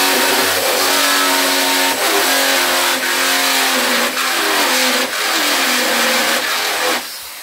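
Ryobi electric drill running flat out with a blunt bit grinding through the sheet-metal front fender, a loud, wavering metallic screech over the motor's whine. It stops abruptly near the end.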